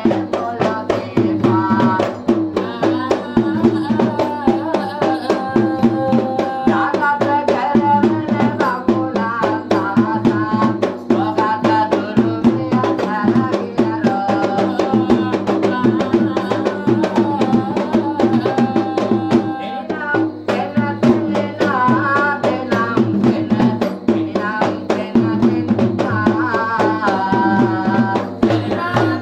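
Yak bera, the low-country Sri Lankan double-headed drum, played with rapid hand strokes while a man sings Pattini verses over it in phrases.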